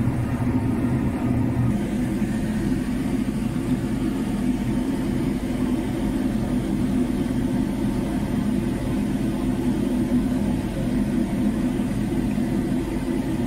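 Ship's engine running steadily: an even, low drone with no change in pitch.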